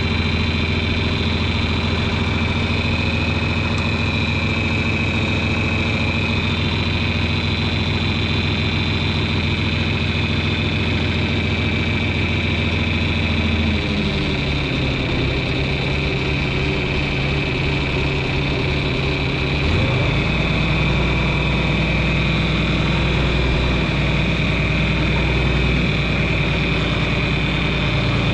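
John Deere 2940 tractor's diesel engine running steadily under way. Its engine note changes about halfway through, and again about two-thirds through, where it gets slightly louder.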